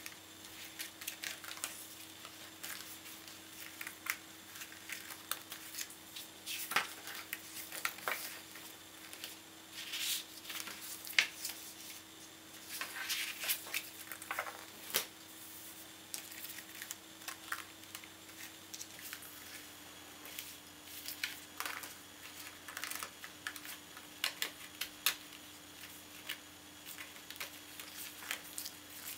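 Sheets of thin pre-cut card and a magazine handled by hand: intermittent soft rustles, slides and light taps of paper. A faint steady hum runs underneath.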